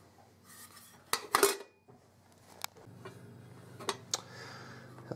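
Metal clinks of a lid and a soldier's mess tin being handled: a few sharp clicks, two close together a little after a second in and others near three and four seconds.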